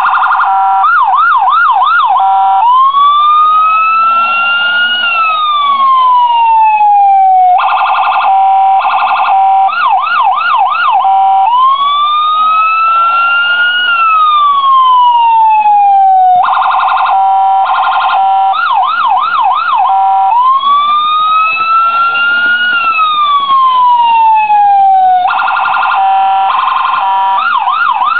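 Electronic police siren cycling through its tones: a stuttering pulsed section, then a quick yelp of rapid up-and-down sweeps, then a long wail that rises and falls. The cycle repeats about every nine seconds.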